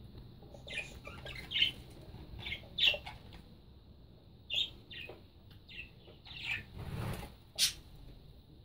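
Budgerigars chirping in short, scattered high calls, with a brief rustle about seven seconds in.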